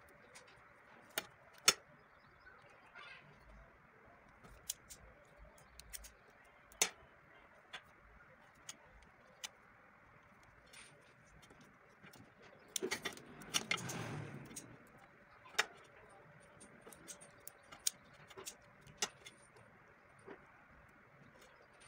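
Small tools and objects being handled and set down on a worktable: scattered light clicks and taps, with a longer, louder stretch of clattering and rustling a little past halfway.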